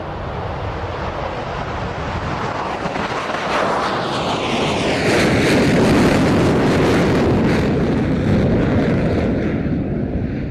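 F-14B Tomcat's twin General Electric F110 turbofans at full power with afterburner as the jet lifts off from a touch-and-go and climbs past. The jet noise builds to its loudest about five to seven seconds in, with a whine falling in pitch as it goes by, then eases off near the end.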